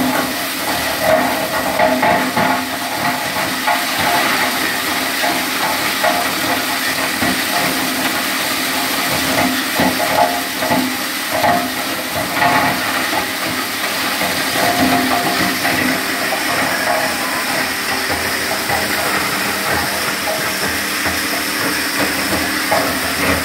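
Wood chipper (wood crusher) machine running, a loud steady noisy whir with a constant whine over it.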